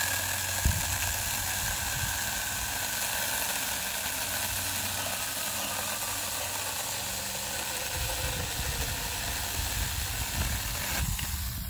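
Saker 4-inch 20V cordless mini chainsaw running, its chain cutting through a pressure-treated 2x8 board. It makes a steady high whine that slowly falls in pitch, with a sharp click about half a second in, and it stops shortly before the end.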